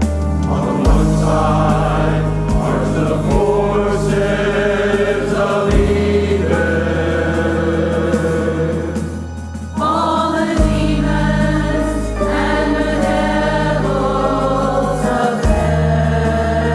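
Church choir singing a hymn over instrumental accompaniment with long held bass notes. The sound dips briefly about nine seconds in, then the choir comes back in full.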